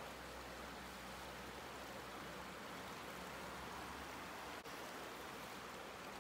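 Shallow river rushing over rocks and boulders: a steady, even rush of water.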